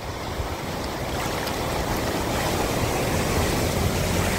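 A Hyundai hatchback driving through deep floodwater, its wheels churning up a heavy rushing splash of spray that grows louder as the car comes close and passes.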